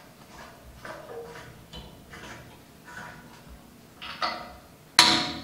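Light metallic clicks and taps of stainless-steel fittings being handled at the bottom of a conical fermenter, then a sharp, loud clack about five seconds in.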